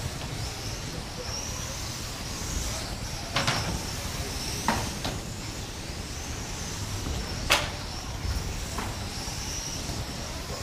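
Electric radio-control cars racing on a carpet track, their motors and gears whining up and down as they accelerate and brake. A handful of sharp knocks are heard as cars hit the track barriers or each other, the loudest about two-thirds of the way through.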